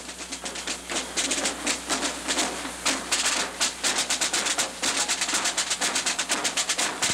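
Fast, irregular clatter of sharp knocks, several a second, like rapid banging or drumming.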